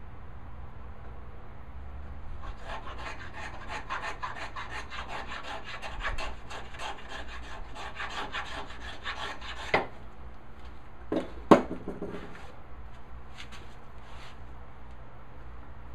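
A hand tool working the walnut: a run of rapid, even scraping strokes, about four a second, followed by a few sharp wooden knocks, the loudest about a second and a half after the strokes stop.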